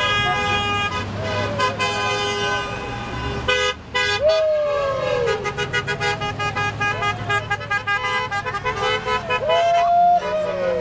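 Car and truck horns honking from passing vehicles, several at once with long held blasts at first and then short repeated toots, over engine rumble. People whoop and yell over the horns.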